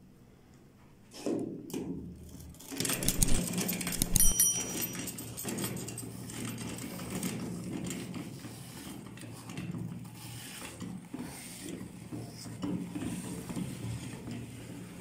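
Hand-cranked metal meat grinder being turned, its screw crunching through a wafer bar, a steady scratchy grinding from about five seconds in. Before that, a few knocks and clatter as the grinder is handled and the wafer is pushed into the hopper.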